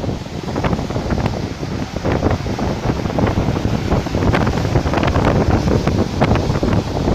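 Sea waves washing and breaking, a steady surf hiss full of small crackling splashes, with wind rumbling on the microphone.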